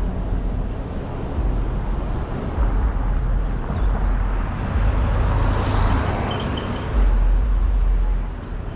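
Road traffic: a vehicle passing, its noise swelling and fading about five to six seconds in, over a heavy low rumble.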